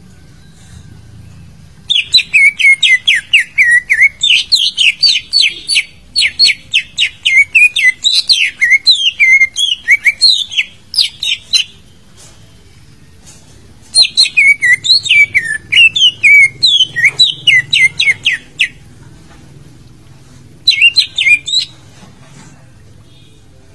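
Green leafbird (cucak ijo) song: loud, rapid runs of sharp, swooping whistled notes, several a second, in three bouts. The first bout is long, the second shorter, and a brief burst comes near the end.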